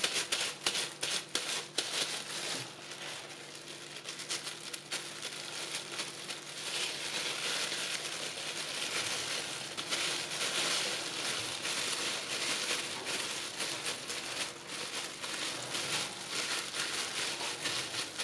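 Thin disposable plastic gloves crinkling and rustling as gloved hands press and wrap soft dough around a ball of filling, with sharp crackles in the first few seconds and a denser crackle from about seven seconds in.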